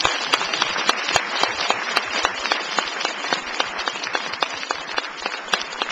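Audience applauding: many people clapping steadily, easing off slightly near the end.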